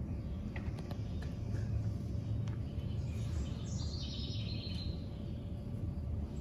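Faint birdsong, a short chirping trill about four seconds in, over a steady low rumble of room noise.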